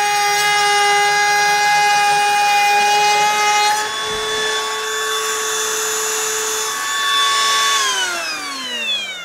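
Einhell TP-RO 18 Li BL brushless cordless router at speed setting 6 (about 30,000 RPM) running with a steady high whine while it cuts a chamfer along an oak board; about four seconds in the tone shifts slightly. Near the end the motor is switched off and the whine falls steadily in pitch as it spins down gradually rather than stopping at once.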